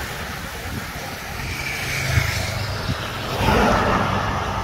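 Cars driving past close by, a low engine rumble with tyre noise that grows louder about three and a half seconds in.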